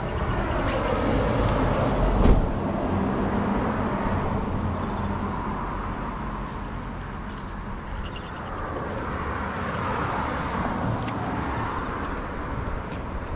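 Steady traffic noise from passing vehicles, rising and falling slowly, with one solid thump about two seconds in, a car door shutting.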